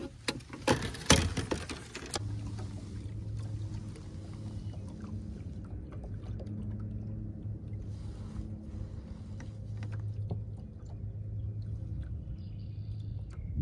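Knocks and clatter of handling on a boat, then from about two seconds in a small electric motor on the boat hums steadily at an even pitch.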